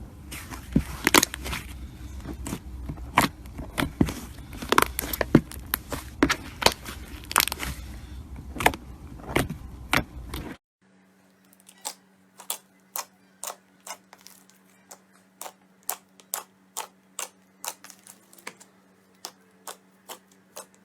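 Slime being squeezed and stretched, crackling and popping densely as air pockets burst. About ten seconds in it cuts to a quieter clip of slime clicking in evenly spaced pops, about two a second, over a faint steady hum.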